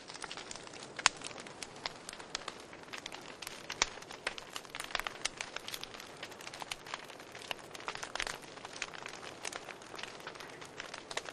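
Plastic singing Christmas toy burning and melting in a flame, crackling and popping irregularly over a low hiss.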